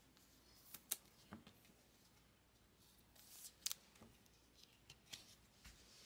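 Faint handling of trading cards: a few short scrapes and ticks as the cards are held and slid past each other. The sharpest come about a second in and again about three and a half seconds in.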